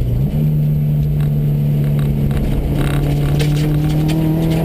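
Subaru rally car's flat-four engine heard from inside the cabin: its revs jump up sharply about a third of a second in, a downshift as the car slows, then hold steady. Tyre and gravel noise runs underneath.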